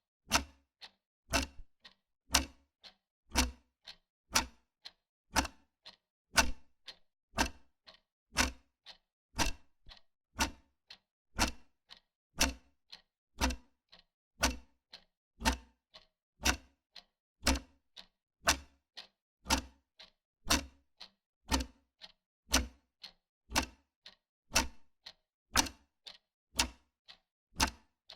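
Wall clock ticking steadily, about two ticks a second, alternating louder and softer in a tick-tock pattern.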